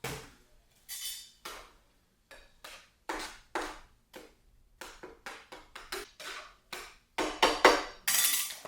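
A cooking utensil clanking against a pan in quick, irregular strikes as food is stirred and turned, with a louder run of strikes near the end.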